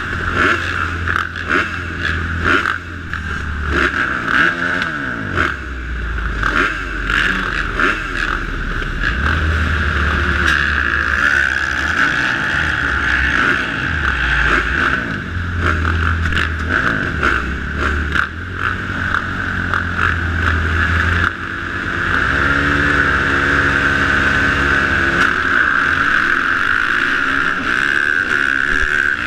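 A row of motocross dirt bike engines revving in short, overlapping blips at the start gate. About two-thirds of the way through, the bikes launch, and the nearest bike's engine holds high revs under full acceleration.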